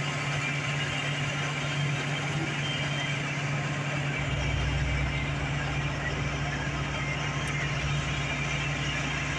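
A vehicle engine idling with a steady low hum; a deeper rumble joins about four seconds in.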